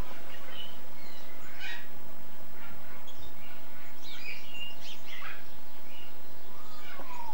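Birds chirping in short scattered calls, with one longer call falling in pitch near the end, over a steady outdoor background hiss.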